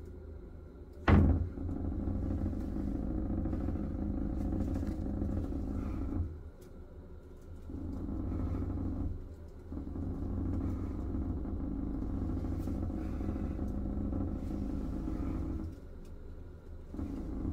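Bathroom exhaust fan running with the plastic (SMC) ceiling panel and access-hatch lid buzzing in sympathy, a steady low hum that drops out briefly three times. A sharp knock comes about a second in. The vibration is traced by the installer to spare tiles laid directly on the SMC hatch lid.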